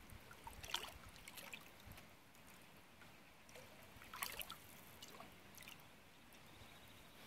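Faint canoe paddle strokes in calm water: a brief splash and trickle of drips about a second in, and another about four seconds in.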